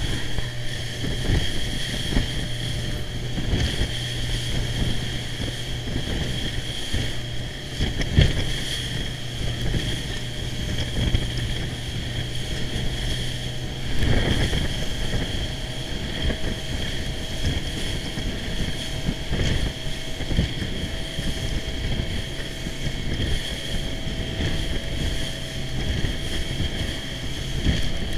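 Motorboat running at speed over open sea: a steady engine drone mixed with water rushing and splashing against the hull, and wind buffeting the microphone. A couple of louder brief thumps stand out now and then.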